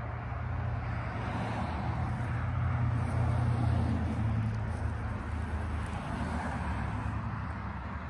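Low, steady rumble of a passing road vehicle, swelling to its loudest about halfway through and then easing off.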